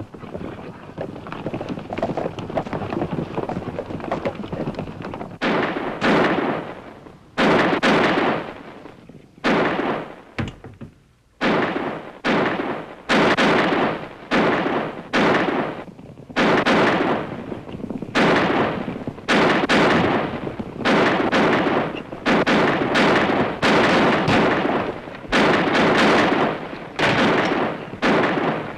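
Horses' hoofbeats, then from about five seconds in a gunfight: a long run of gunshots, about one a second, each with a ringing tail.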